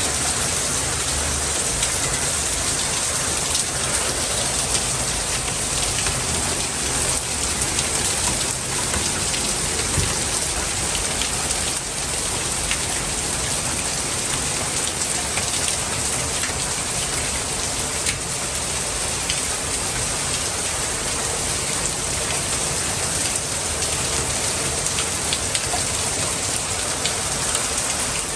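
Steady rain falling: an even hiss with many small, sharp drop ticks, holding the same level throughout.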